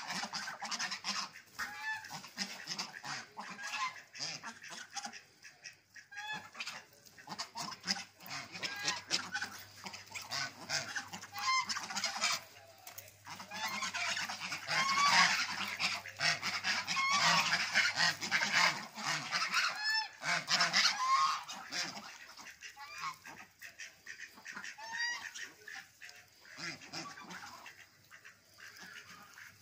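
A flock of white domestic geese honking, many short calls overlapping, busiest and loudest around the middle and thinning near the end. It is the geese calling for food.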